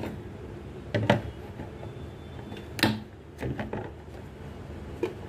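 Kitchen handling noises: a few separate clicks and knocks, with a quick cluster of them about three and a half seconds in.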